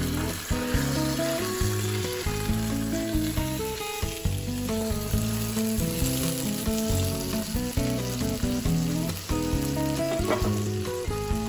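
A whole chicken sizzling steadily in hot oil with ginger and garlic in a nonstick pot as it is browned, with the soft scrape of silicone spatulas turning it over.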